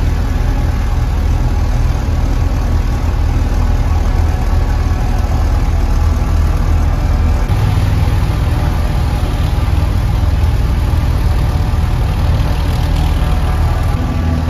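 Narrowboat engine running steadily at cruising speed inside a brick canal tunnel, a continuous low drone whose tone shifts slightly about halfway through.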